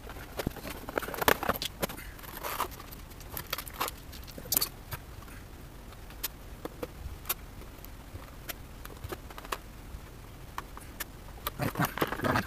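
Plastic action-figure packaging being handled and opened: irregular clicks, taps and short scrapes of plastic as the figure is worked out of its tray.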